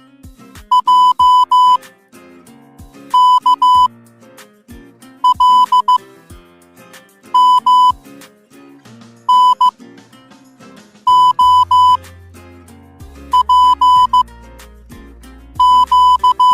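Morse code beeps: groups of short and long tones (dits and dahs) at one steady high pitch, a new group about every two seconds. Background music plays underneath, and a deep bass comes in about eleven seconds in.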